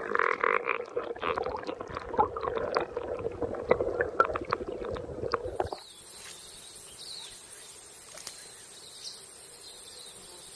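Underwater river sound picked up by a submerged camera: muffled churning water with many small clicks and knocks. It cuts off suddenly about six seconds in, giving way to a steady high-pitched drone of insects with faint chirps over it.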